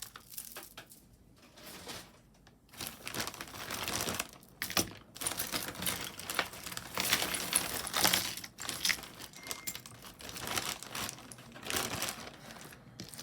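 Costume jewelry being handled and sorted by hand: beads and metal pieces clicking and clinking together in quick irregular taps, with crinkling rustles.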